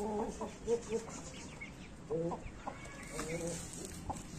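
Chickens clucking: short, low calls in small groups, one cluster right at the start, another about two seconds in and a third a second later.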